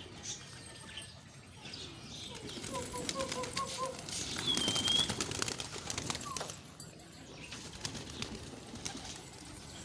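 A flock of domestic pigeons flapping their wings, with a quick run of short calls about three seconds in and a brief high whistle near the middle, where the flapping is loudest.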